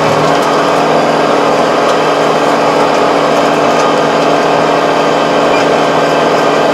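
Tractor diesel engine running steadily under load while a Kobashi rotary tiller behind it turns through the soil, a steady mechanical drone with the rattle of the tilling rotor.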